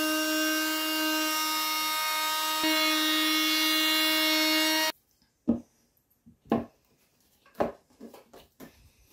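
Oscillating multi-tool with a triangular sanding pad running steadily as it sands a couple of millimetres off the bottom end of a wooden window casing, a slight step up in pitch about two and a half seconds in, then cutting off abruptly about five seconds in. After that, a few wooden knocks and taps as a new sill strip is pushed into place against the casing.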